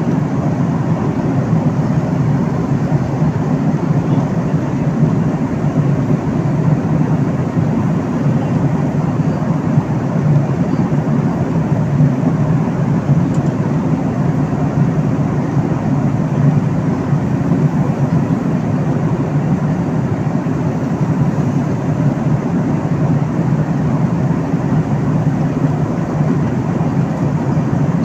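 Steady low rumble of an airliner cabin in flight, the engines and airflow making an even noise that does not change.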